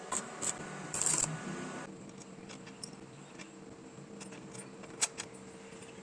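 Scattered light clicks and clinks of small metal parts being handled, with a short hissing rush about a second in and a steady faint hum from about two seconds on.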